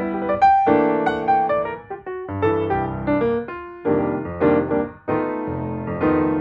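Background music: a piano playing repeated chords in a steady rhythm.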